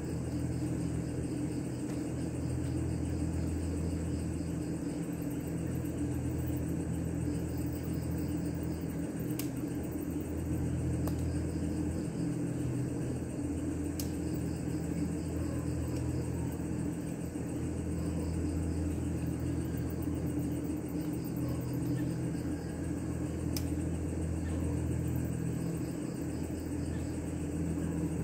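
A steady low motor hum, unchanging throughout, with crickets chirping faintly in the background.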